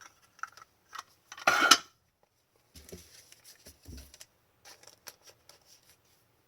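Trading cards and a plastic card holder being handled. There is one loud scraping rustle about a second and a half in, then scattered light clicks and taps.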